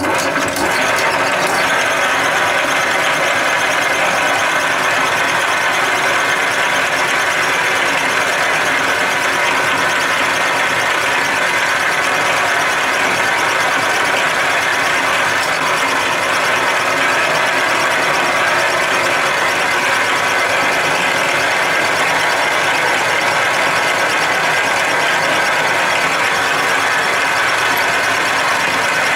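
Small metal lathe running steadily, its spindle turning a rod while a scissor-type knurling tool's wheels roll a knurl pattern into it. It starts abruptly at the beginning, a steady mechanical whirr with gear noise.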